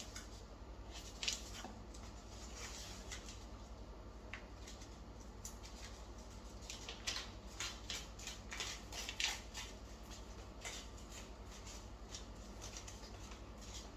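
Plastic wrapping crinkling and rustling in the hands as a tablet cover is unwrapped, in irregular bursts that bunch up about halfway through, over a steady low hum.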